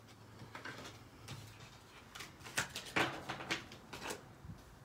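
Tarot cards being handled and shuffled: a scattered run of light clicks and taps, a few louder ones near the middle.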